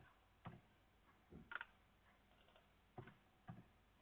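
Faint, separate clicks of a computer mouse and keyboard, about five in all, two of them close together about a second and a half in, against near silence.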